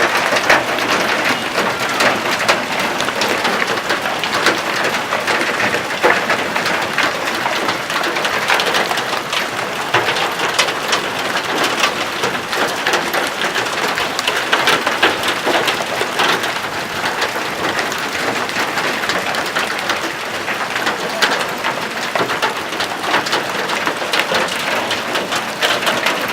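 Hail falling hard and pelting surfaces: a dense, steady clatter of countless small impacts.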